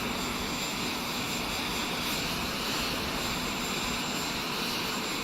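Steady jet aircraft noise, an even rush with a thin high whine running through it.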